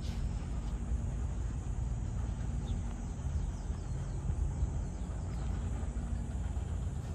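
Steady low outdoor rumble with a faint hum, and a couple of faint, short, high chirps about a third of the way in.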